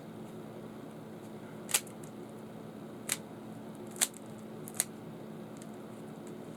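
Four sharp, separate plastic clicks from a Rubik's Cube's layers being turned, over a steady low hum.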